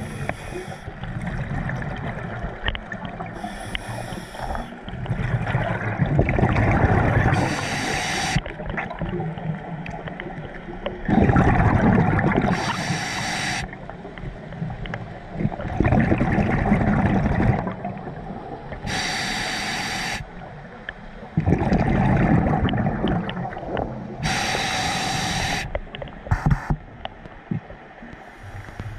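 A scuba diver breathing underwater: a hiss from the breathing gear on each breath, alternating with bursts of gurgling bubbles, in a cycle repeating every four to six seconds.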